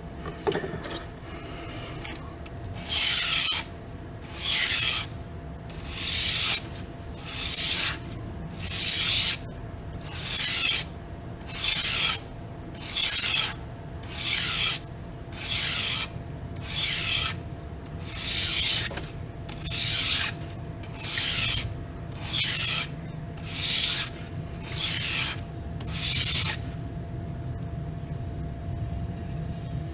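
Knife blade stroked over the abrasive of a Washboard freehand sharpening board: about seventeen even rasping strokes, one every second and a half or so, stopping a few seconds before the end.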